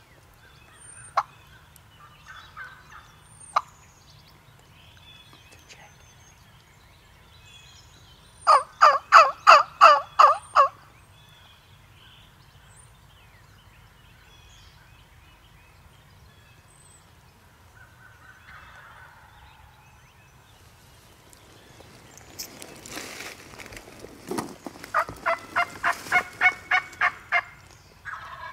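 Wild turkey calling: two loud runs of about nine or ten quick notes each, one about eight seconds in and another near the end that climbs in pitch. A rustling noise comes just before the second run, and a few sharp clicks sound in the first few seconds.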